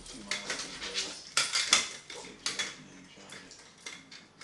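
Irregular sharp crinkles and clicks as a miniature schnauzer jumps and paws at a foil birthday balloon, the thin metallic foil rustling when struck and the dog's claws clicking on a wooden floor, loudest about a second and a half in.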